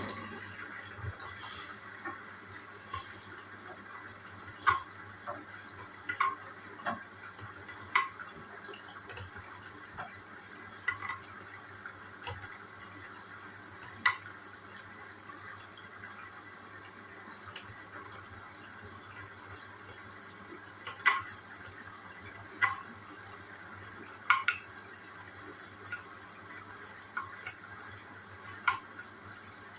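Hoover All In One washer-dryer filling with water at the start of a wash programme: a steady rush of water with a low hum, broken by irregular clunks and splashes.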